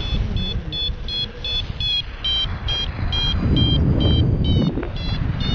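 Syride Sys'Nav paragliding variometer beeping about three times a second, short high beeps whose pitch shifts from beep to beep: the climb tone that signals the glider is rising in lift. Wind rumbles on the microphone underneath, louder about halfway through.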